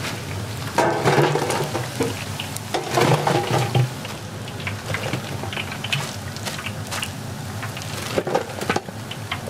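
Deep-frying oil sizzling and crackling irregularly around battered tangsuyuk pork pieces, lifted from the wok in a wire skimmer basket. The crackling swells about a second in and again around three seconds in.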